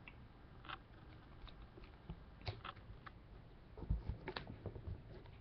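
Faint clicks and taps of hands handling a plastic magnetic card holder and the hard Panini Flawless briefcase, with a soft thump about four seconds in.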